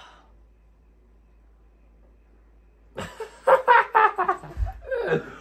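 A quiet pause, then about three seconds in a man and a woman burst out laughing loudly in short, hearty bursts.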